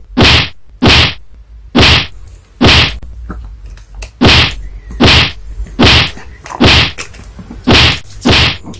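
A repeated whack sound effect: ten sharp, alike hits, each under a second apart, with one longer pause partway through.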